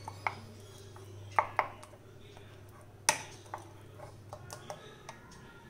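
A spoon stirring thick chocolate cake batter in a ceramic bowl, clinking against the bowl's side several times at uneven intervals; the loudest clink comes about three seconds in.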